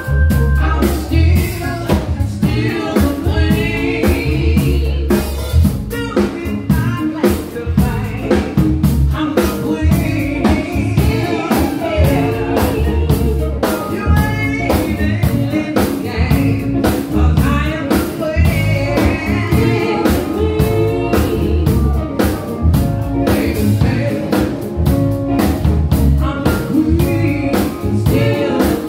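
Live band music: a drum kit and an electronic keyboard playing a song, with a woman singing lead.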